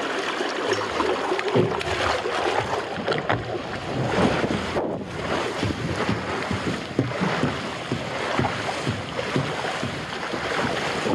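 Water rushing and spraying as a rider slides feet-first at speed down an open Klarer body slide, with irregular knocks as the body bumps over the joints between the slide sections, which are badly seamed.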